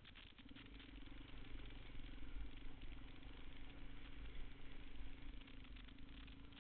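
Motorcycle engine running at a steady pitch. It grows louder about half a second in, as the bike rides through a stretch of water on the trail.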